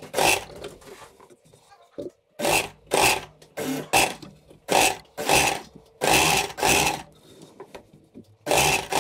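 Sewing machine stitching a seam through knit fabric in about ten short runs of half a second or so, stopping and starting between them.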